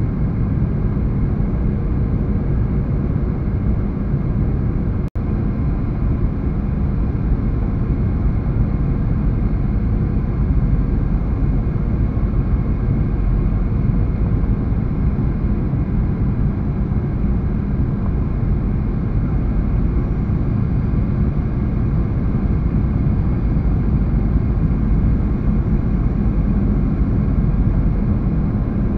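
Airliner cabin noise on final approach: the steady rush of engines and airflow heard from a window seat, with a low hum underneath. There is a momentary dropout about five seconds in.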